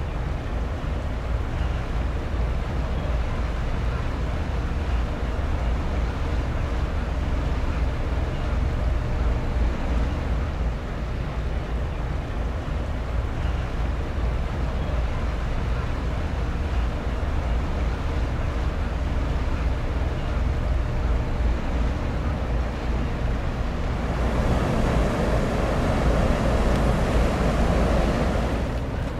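High-speed ferry passing close by on a canal: a steady low rumble with wind buffeting the microphone. For the last few seconds a louder rushing hiss of churning water rises as its stern wake goes past.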